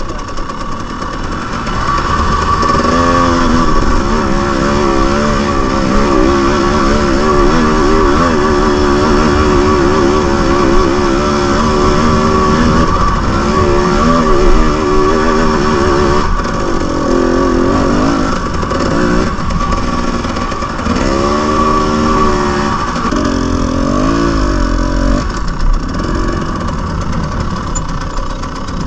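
Two-stroke dirt bike engine, the 300cc of a TX300, running under constantly changing throttle, its pitch wavering up and down over and over as it works along steep trail.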